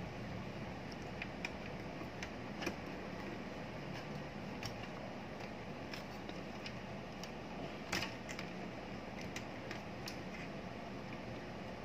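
Cable connectors and wiring being handled and plugged in by hand: a scatter of small plastic clicks and taps, the loudest about eight seconds in, over a steady low hum.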